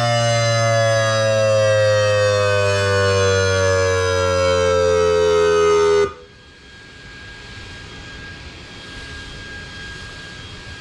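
Ion Pathfinder electronic warning siren at the end of its attack signal: a loud tone slides slowly down in pitch, then cuts off abruptly about six seconds in. Afterward only low background hiss with a faint steady high tone is left.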